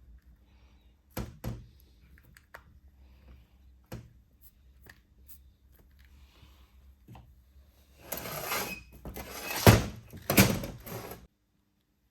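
Brake caliper parts and tools being handled on a workbench: a few light knocks, then about eight seconds in a louder three-second stretch of rubbing and clatter with two sharp knocks, cut off abruptly.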